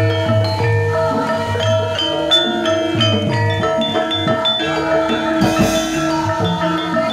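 Javanese gamelan played by a young ensemble: bronze metallophones ring out overlapping struck notes over deep, held low notes. About five and a half seconds in, a brief gust of wind buffets the microphone.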